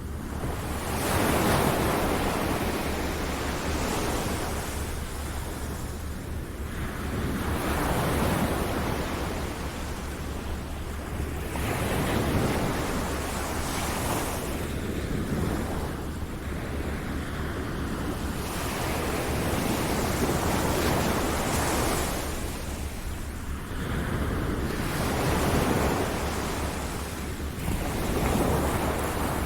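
Ocean surf: waves breaking and washing in, the rush of water swelling and falling back every four to six seconds.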